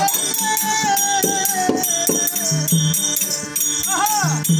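Live folk-theatre music: a gliding melody line over a steady jingling rhythm of small percussion and a repeated low drum beat.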